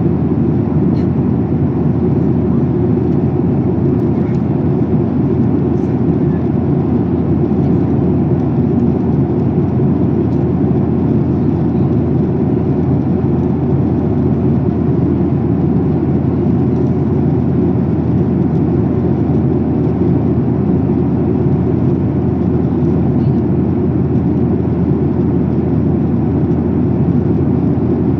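Steady in-flight cabin noise of a Boeing 737-800, heard from a seat over the wing: a loud, even, low roar of its CFM56-7B engines and the air rushing past the fuselage, unchanging throughout.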